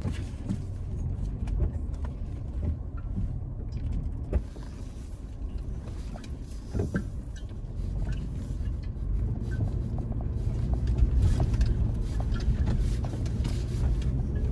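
Toyota 4Runner crawling along a rutted dirt trail, heard from inside the cabin: a steady low rumble of engine and tyres, with scattered knocks and clicks as the truck works over the ruts.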